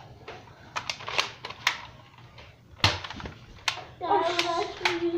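Foam-dart blasters firing, with scattered sharp clicks and snaps from shots and darts striking, one of the loudest about three seconds in. A child's voice calls out from about four seconds in.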